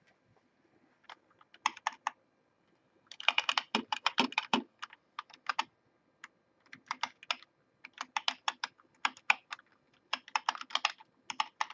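Typing on an Azolt G Reformer keyboard with 'half-mechanical' switches: bursts of quick keystrokes separated by short pauses, starting about a second in.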